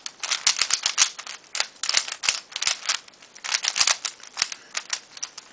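Dayan Guhong v2 speed cube being scrambled by hand: its plastic layers turning in quick, irregular clacks, several a second.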